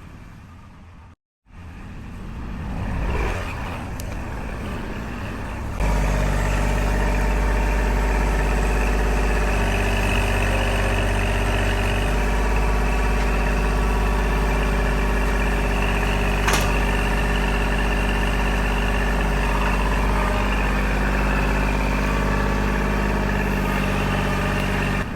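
Kubota L2501 tractor's three-cylinder diesel engine running steadily at a constant speed, quieter for the first few seconds and much louder and closer from about six seconds in. A single sharp click sounds about two-thirds of the way through.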